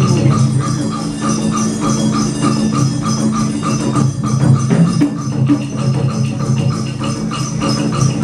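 Live traditional Vietnamese water-puppet orchestra playing: sustained low notes under a quick, even percussion beat of about four strikes a second.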